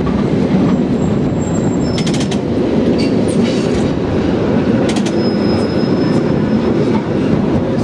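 San Francisco cable car running along its track: a steady loud rumble with a few sharp clanks and a thin, high metallic squeal partway through.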